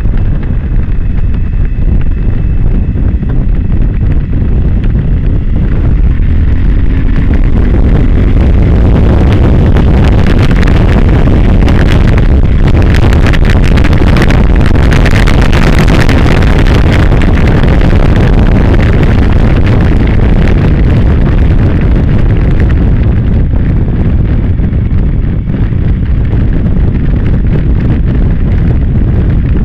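Suzuki V-Strom motorcycle's V-twin engine running at speed under heavy wind rush on the helmet camera's microphone. The wind roar swells in the middle on a straight and eases again going into a corner near the end.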